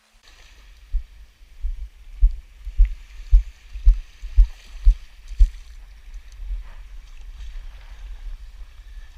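Wind and water noise aboard a Hobie 14 catamaran under sail: water hissing past the hulls and wind rumbling on the microphone. Between about two and five and a half seconds in come a run of low thumps, about two a second.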